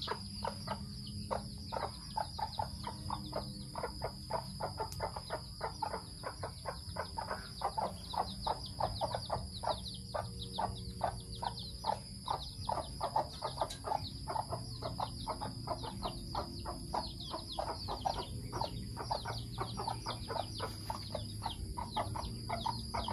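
Chickens foraging, giving a rapid run of short chirps and soft clucks several times a second.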